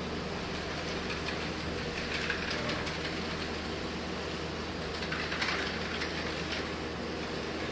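Airless paint sprayer's pump running with a steady hum, with two short hissing spray bursts, the first about two seconds in and the second about five seconds in.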